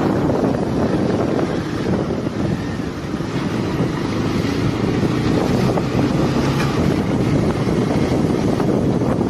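Hero Xpulse 200 single-cylinder motorcycle engine running steadily under way, with heavy wind buffeting on the helmet-mounted microphone.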